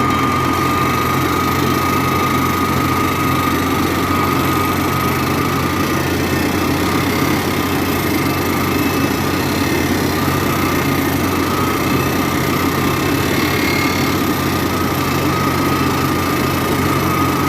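Sandvik DP1100i drill rig running steadily: a constant machine drone with a steady high whine and no break.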